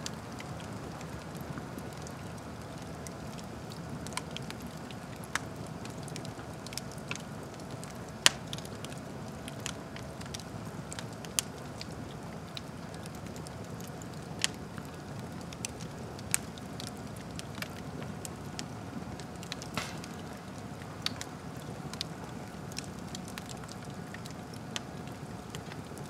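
Wood fire crackling in an open fireplace: a steady low rush of burning logs with sharp, irregular pops and snaps, the loudest about eight and eleven seconds in.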